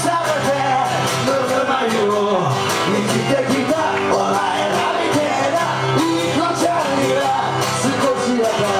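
Live music: a man singing while playing an acoustic guitar, with a woman joining in on a handheld microphone.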